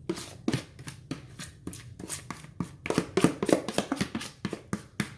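Quick, irregular taps and knocks of a spoon against a mixing bowl and baking pan as the last of the cornbread batter is scraped out into the pan, about four or five a second, a little louder in the middle.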